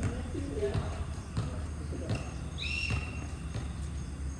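Court ambience: faint voices of players, a few light knocks and a short high squeak about two and a half seconds in, over a steady low hum.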